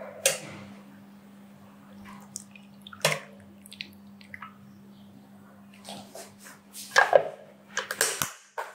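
Kitchenware handling: a steel bowl knocking against a glass food container as cooked chicken pieces and their liquid are tipped in, then the container's clip-on lid being pressed and snapped shut, with a cluster of louder clicks and knocks near the end. A steady low hum runs underneath.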